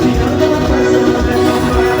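Band music with a steady bass beat.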